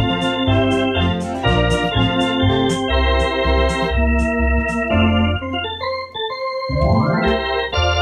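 Electronic organ playing an up-tempo hockey-arena organ tune, with chords over a low bass line. About seven seconds in, a quick run sweeps up the keyboard.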